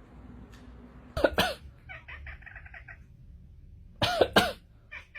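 An animal calling: two short loud cries that bend in pitch, about three seconds apart, with a quick run of softer repeated notes between them.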